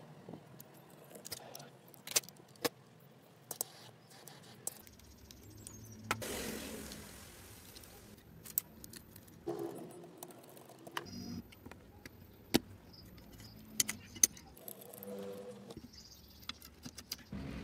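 Sharp small clicks and taps of plastic and metal camera parts being handled and pried apart by hand, scattered irregularly, with a short rustle about six seconds in.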